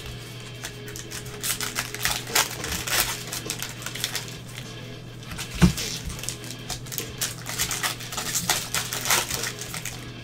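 Football trading card packs being opened and handled by gloved hands: foil pack wrappers crinkling and cards clicking and shuffling in rapid, irregular bursts. One louder thump comes about halfway through.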